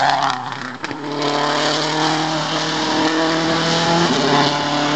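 A Subaru Impreza WRC rally car passing close at speed, a rush of tyre and engine noise with a few sharp cracks in the first second. Then its engine note holds steady as it pulls away, changing pitch about four seconds in.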